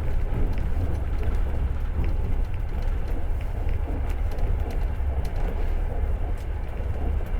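Passenger train carriage running along the track: a steady deep rumble with a hiss of running noise and faint scattered clicks from the wheels and rails.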